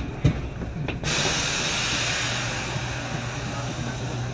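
Compressed air hissing out of a stopped subway train's pneumatic system. The hiss comes on suddenly about a second in and slowly eases off, over the train's steady low hum. Two knocks come just before it, the second the loudest sound here.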